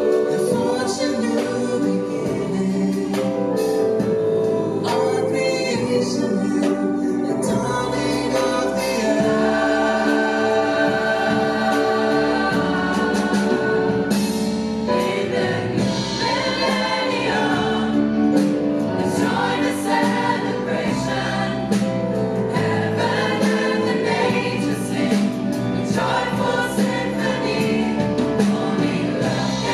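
A youth choir singing a song through the hall's sound system, led by a young male and a young female soloist on handheld microphones.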